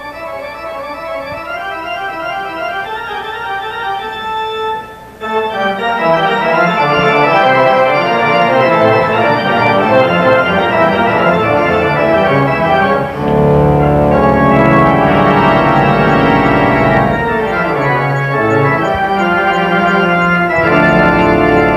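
Robert Morton theatre pipe organ playing sustained chords. It opens with a softer passage, comes in much louder about five seconds in, and deep bass notes join about halfway through.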